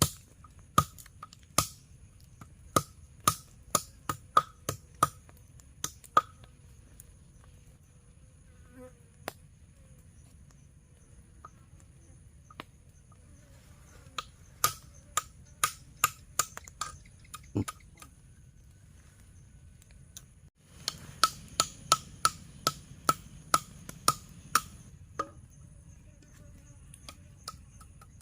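Sharp wooden-sounding knocks in three quick runs, over a steady high-pitched insect drone.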